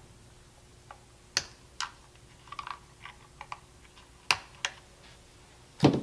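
Wire cutters snipping and clicking through a guitar's pickup lead wires: a series of sharp, irregular clicks, with a duller knock near the end.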